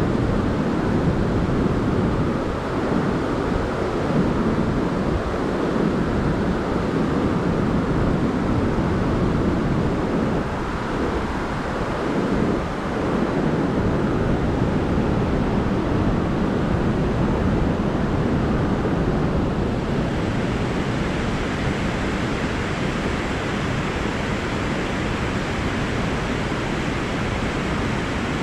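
Steady rushing roar of white-water rapids in a mountain river.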